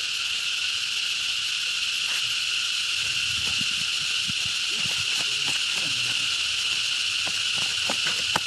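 Steady high-pitched drone of insects, with a few faint ticks and a sharper click near the end.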